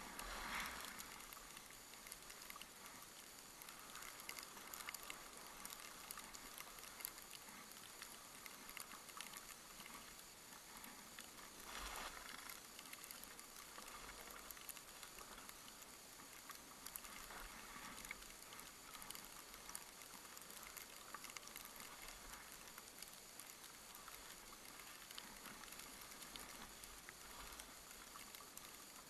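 Near silence: a faint steady hiss with scattered light ticks and crackles, swelling briefly twice, just after the start and again about twelve seconds in.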